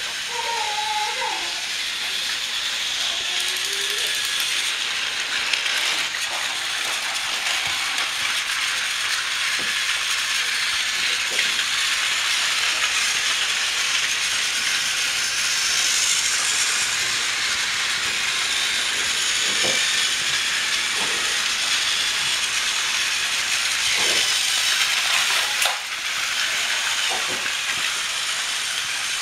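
Several battery-powered TrackMaster toy trains running at once: a steady whir from their small motors and gears, with a few sharp clicks.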